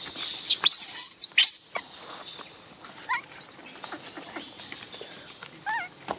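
A baby monkey giving high-pitched squeaks and cries, several loud sweeping ones in the first two seconds, then fainter, scattered ones.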